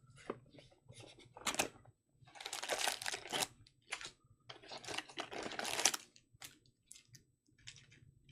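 Hobby box of trading card packs being handled: foil packs and cardboard rustling, with scattered sharp clicks and two longer rustles as the packs are taken out of the box.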